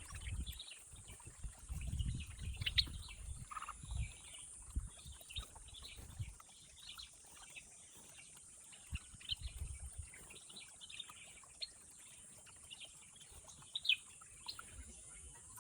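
Small garden birds chirping: many short, high calls scattered throughout, over a steady high-pitched hum. Low rumbles come and go in the first half and once more about ten seconds in.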